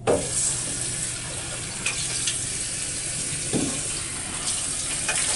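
Water running from a bathroom sink tap, starting suddenly and then running steadily, with a couple of light knocks.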